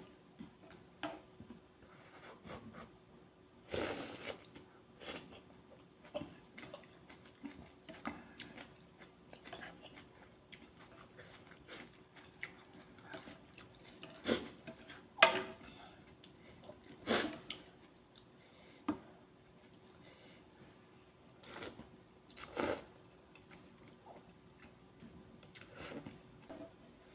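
Close-up eating sounds of Thai suki hot pot with noodles being chewed, broken by scattered short clicks and knocks, the sharpest about fifteen seconds in.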